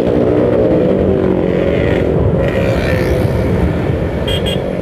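Motorcycle engine running as it rides, its pitch drifting up and down with the throttle, over road and wind noise. Two short high beeps come near the end.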